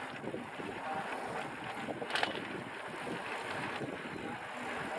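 Wind blowing on the microphone while riding a bicycle, a steady rushing noise, with one short sharp click about two seconds in.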